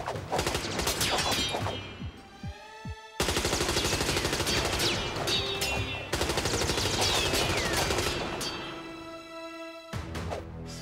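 Rapid handgun gunfire as a film sound effect, shot after shot in long runs, with falling whines among the shots. There is a short lull about two seconds in, and the firing dies away shortly before the end.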